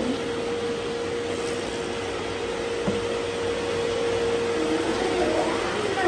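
Robot vacuum running with a steady hum and an even whir, with a single small tick about three seconds in.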